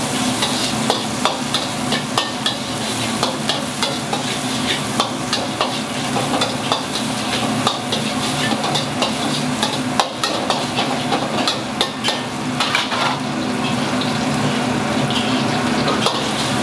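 Chicken fried rice sizzling in a wok while being stir-fried, with a metal spatula clinking and scraping against the pan several times a second, over a steady low hum.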